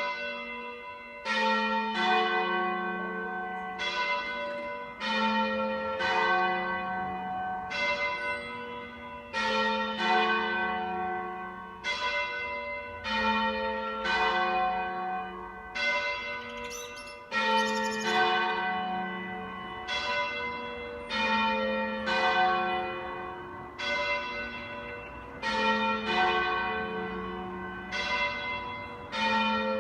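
Italian church bells ringing: a steady series of strokes about every second and a half, each ringing on into the next, with the deepest note shifting between two pitches as different bells sound.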